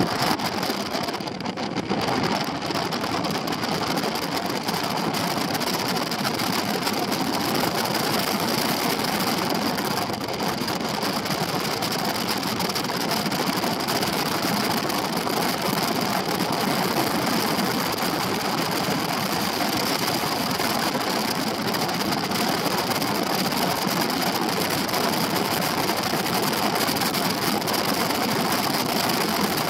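Benelli TRK 702 X adventure motorcycle's parallel-twin engine running at road speed, mixed with a steady rush of wind noise over the microphone.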